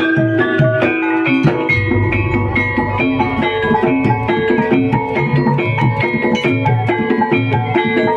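Live Javanese gamelan playing kuda kepang accompaniment. Bonang gong-kettles and metallophones ring out a fast run of struck metal notes over repeated low strokes of the double-headed kendang drums.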